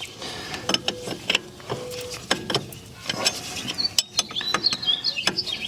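Wrench working on a tractor's metal hydraulic hose fittings: a run of irregular metallic clicks and clinks, with a few short rings, as the fitting is worked loose.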